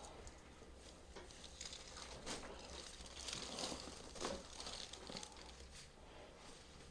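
Faint rustling and crinkling of clothing and skin under a chiropractor's hands during soft-tissue work on the shoulder, with a few soft ticks.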